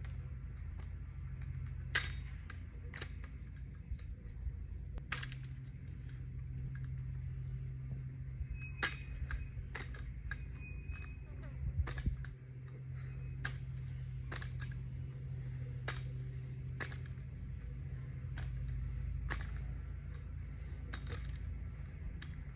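Sharp slaps, clacks and knocks of a fake drill rifle being handled through a rifle-drill routine, coming irregularly every half second to couple of seconds, over a steady low hum.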